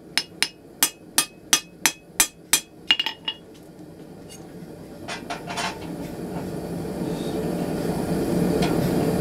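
Hand hammer striking a steel bar on an anvil, about three ringing blows a second, while forging a flint striker. The blows stop about two and a half seconds in, followed by a few lighter metal clinks and then a rushing noise that grows steadily louder.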